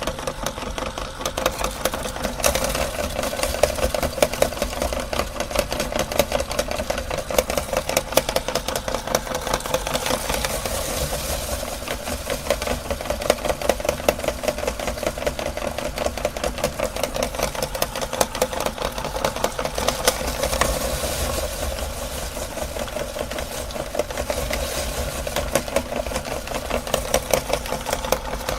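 Electric meat grinder running steadily, its auger crushing colourful cookies with a dense, rapid crackle over the motor hum.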